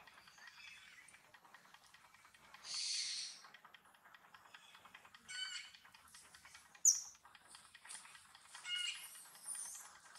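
Scattered short, high-pitched bird-like calls and chirps a few seconds apart, with a sharp high chirp about seven seconds in.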